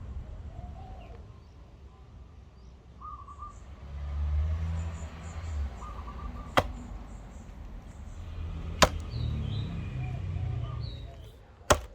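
Three sharp knocks, a couple of seconds apart, over a low rumble, with small birds chirping now and then.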